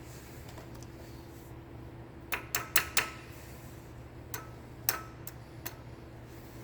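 Small metal parts and hand tools clicking and clinking as the brake pedal pivot hardware is handled: a quick run of about four sharp clicks a little over two seconds in, then a few single clicks, some with a short metallic ring, over a steady low hum.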